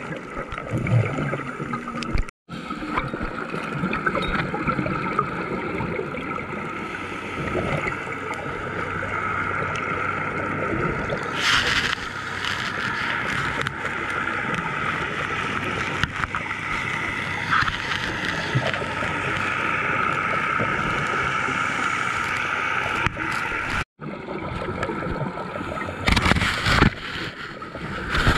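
Muffled underwater noise picked up through a diving camera's housing, with a scuba diver's exhaled bubbles rushing past about halfway through and again near the end. The sound cuts out for an instant twice.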